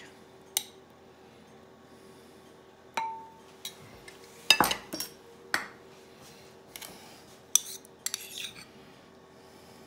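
A metal spoon clinking and knocking against a ceramic plate and a serving bowl: a handful of separate short taps spread out, one ringing briefly, the loudest a cluster about halfway through.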